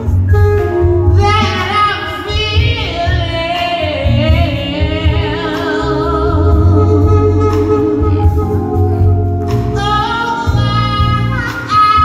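A woman singing live into a microphone, sliding through runs and holding notes with a wavering vibrato, over a steady instrumental accompaniment.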